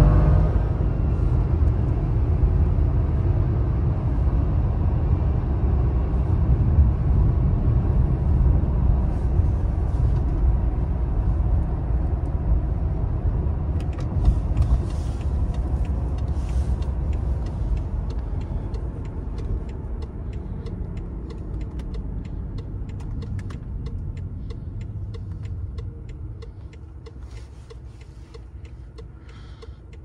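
BMW 760's V12 and the tyres running on the road, a steady low rumble that gradually fades over the second half as the car slows. The car has a slight ignition problem but is not losing power.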